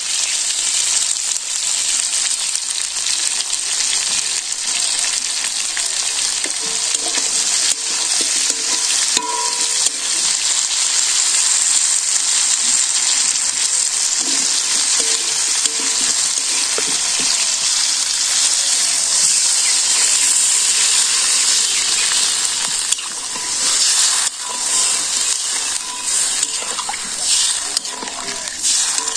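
Cauliflower and potatoes sizzling in hot oil in an aluminium kadai, stirred with a metal spatula that scrapes against the pan. In the last few seconds the sizzle drops and turns uneven as water goes into the pan.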